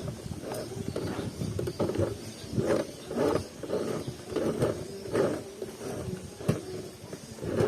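Small portable sewing machine stitching through thick denim in short, uneven bursts, about one or two a second.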